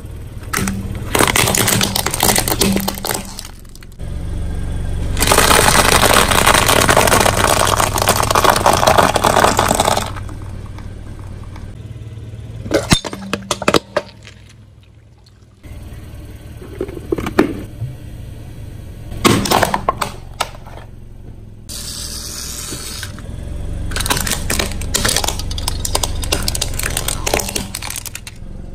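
Car tyre rolling over plastic toys and other objects on concrete, crushing them: a string of sharp cracks and snaps, with a long stretch of dense crackling from about five to ten seconds in, over the low rumble of the car.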